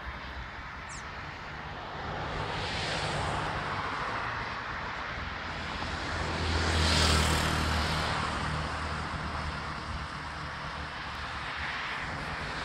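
A steady engine drone with hiss, growing louder to a peak about seven seconds in and then easing off, like an engine passing by at a distance.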